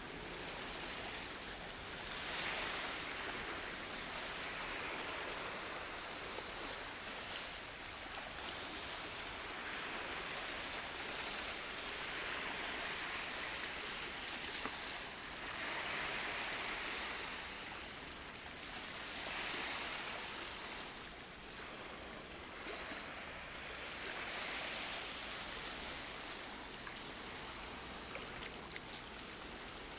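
Small waves washing against the shore, a steady rush of water that swells and fades every few seconds.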